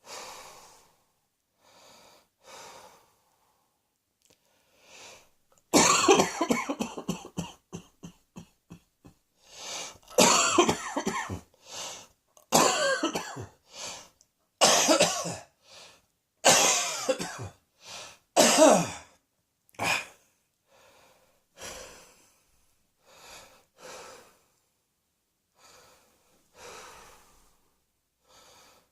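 A person coughing in a long fit: quiet breaths at first, then a rapid string of hard coughs about six seconds in, followed by several more loud coughing bouts with breaths between, easing back to softer breathing for the last several seconds.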